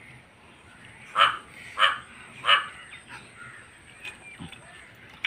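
A crow cawing three times in quick succession, short harsh calls about half a second apart, then fainter sounds.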